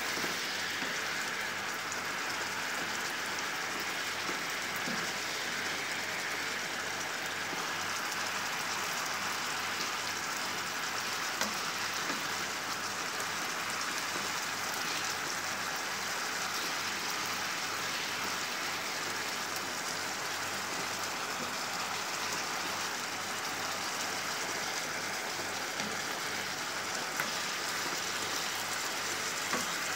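Chicken pieces sizzling and bubbling in sauce in a frying pan: a steady hiss with faint scattered pops.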